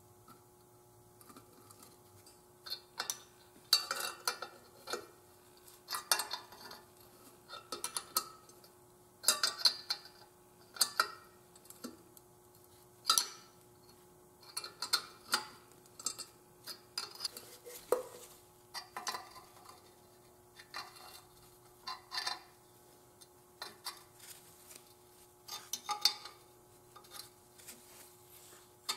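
Irregular metallic clinks and clicks of a wrench being worked on bolts low on an old single-cylinder stationary engine, some strokes ringing briefly.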